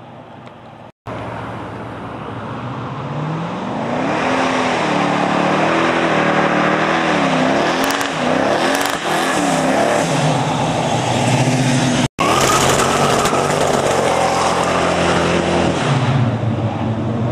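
1967 Chevelle doing a burnout: the engine comes up and revs hard, swinging up and down, while the rear tyres spin and squeal, then holds at high revs with the tyres screeching steadily before easing off near the end. The sound cuts out completely for a moment twice.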